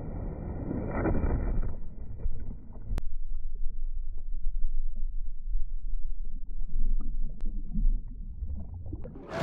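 Wave-pool water churning after a breaking wave, heard through a submerged phone microphone as a muffled low rumble, with a single sharp click about three seconds in. Near the end the sound suddenly opens up to full clarity as the microphone comes back out of the water.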